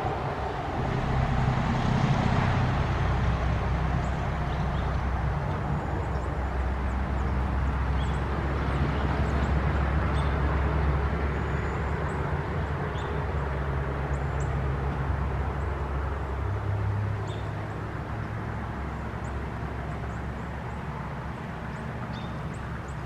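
A vehicle engine running steadily with a low hum that gets quieter about seventeen seconds in, with faint bird chirps above it.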